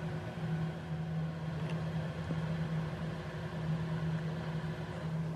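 Motorized hoist of a theater lighting electric running with a steady low hum as the pipe of stage lights is lowered.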